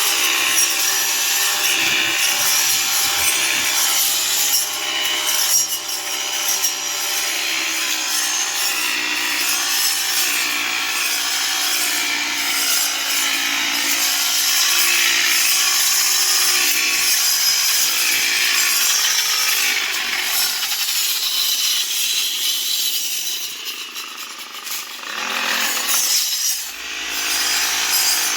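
Grass-cutting machine running steadily: an engine hum under a loud grinding, rasping cutting noise. Near the end it dips briefly, then rises in pitch and comes back up.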